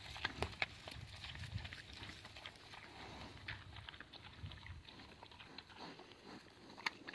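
A pig crunching acorns while rooting in dry grass and leaves. Short sharp crunches and clicks come thickest in the first second and again near the end, over a faint low rustle.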